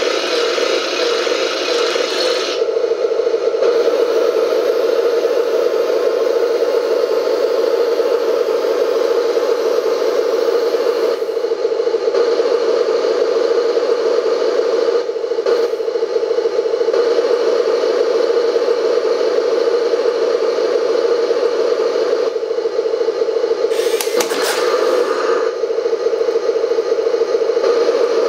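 Radio-controlled metal M1 Abrams model tank standing still and running with a steady droning hum, while its turret turns. Two louder, rougher, higher-pitched stretches of motor and gear noise come in, one at the start and one about four-fifths of the way through.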